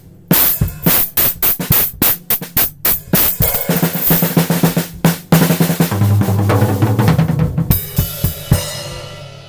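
Acoustic drum kit played: kick and snare strokes, then a fast fill with low tom hits, ending on cymbals that ring out and fade. Recorded through a webcam microphone, which the drummer blames for a distorted, terrible-sounding hi-hat.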